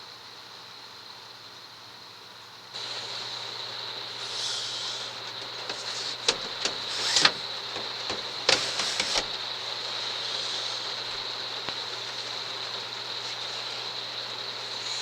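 Steady rain hiss that jumps louder abruptly about three seconds in, with a quick run of clicks and knocks from about six to nine seconds in.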